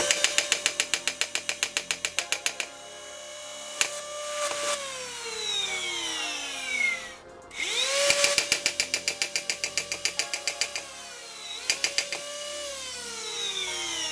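Nerf blaster flywheel motors spin up with a rising whine, and a PWM-driven pusher solenoid cycles full-auto at about nine strokes a second before the flywheels wind down with a falling whine. This happens twice, and the second run ends with a short extra burst of solenoid strokes.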